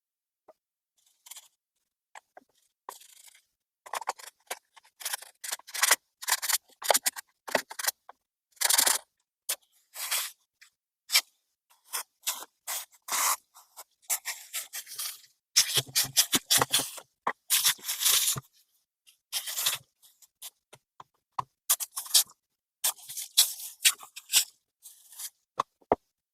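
Irregular scraping and clicking of small parts and tools being handled, in quick short strokes with pauses between, starting a few seconds in and thickening from about four seconds.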